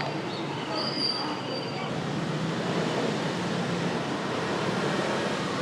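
Steady background noise of a busy place with faint voices, and a thin high squeal in the first two seconds.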